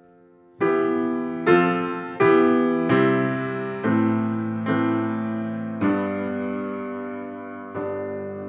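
Grand piano played slowly: a held chord dies away, then about eight chords are struck, each left to ring and fade, the strikes coming further apart toward the end.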